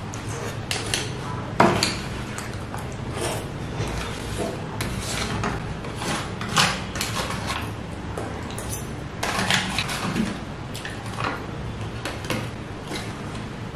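Metal spoon scraping and clinking against a crinkly aluminium foil takeaway tray as the last saucy pasta is scooped out, in scattered short scrapes and clicks, a few louder ones about two, seven and ten seconds in. Chewing is heard between spoonfuls.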